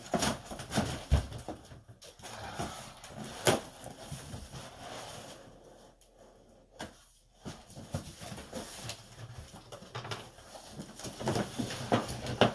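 Cardboard rustling and scraping with scattered knocks and clicks as a heavy aluminium-edged flight case is pulled out of its shipping box; it goes briefly quieter midway.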